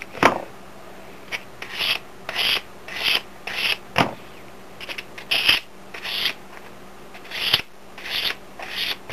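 Hand sanding of German silver (nickel silver) pendant pieces with 320-grit sandpaper: short scraping strokes, about one every half second, with a sharp click about four seconds in.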